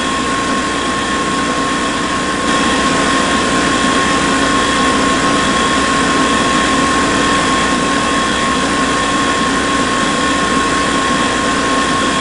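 Small DC hobby motor of a homemade mini borewell drilling and pump rig running continuously with a steady high whine, stepping up slightly in loudness about two and a half seconds in.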